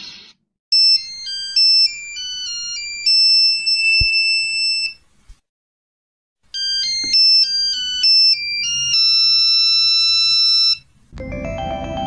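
Two short Samsung SGH mobile phone power jingles, one after the other with a brief silence between: each is a quick run of clear electronic beep notes that settles on a held chord. A fuller jingle begins near the end.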